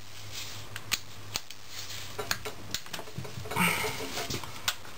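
Socket ratchet and hand tools clicking and tapping on the valve body of a 4L80E automatic transmission: scattered single sharp clicks, with a short scraping rustle about three and a half seconds in.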